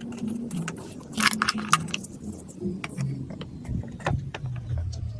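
Marbles rolling down a plastic building-block marble run, making many quick, irregular clicks and clatters against the track.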